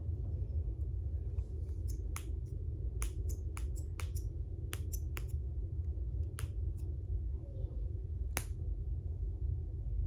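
A snapper fidget toy clicking sharply about fifteen times at an irregular pace, some in quick runs, the loudest near the end, over a steady low hum.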